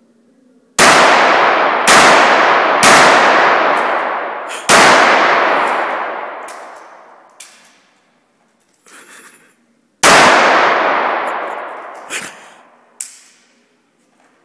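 Five revolver shots: four in quick succession, then a fifth after a pause of several seconds. Each crack rings on in a long echo off the bare concrete walls. A few smaller clicks follow near the end.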